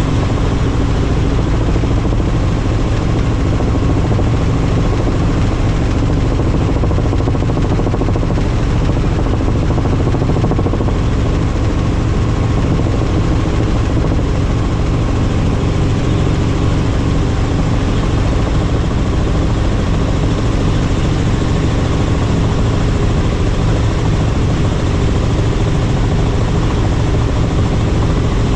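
Helicopter in flight: the rotor and engine make a loud, steady drone of low tones over a hiss, unchanging in level and pitch.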